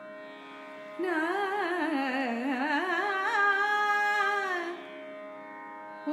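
A woman's voice sings a short wordless Carnatic phrase with fast, oscillating ornaments (gamakas), dipping low and then settling on a held note, starting about a second in and ending near five seconds. A steady pitched drone sounds under it throughout.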